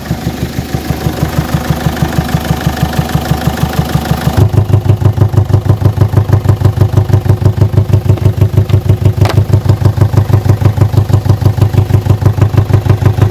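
Peugeot 807's 2.0 HDi diesel engine idling with an even, rhythmic knock that gets louder about four seconds in. The mechanic takes it for air puffing back past a valve into the intake manifold, possibly from a hydraulic lash adjuster that isn't pumping up, which makes the air flow meter readings jump.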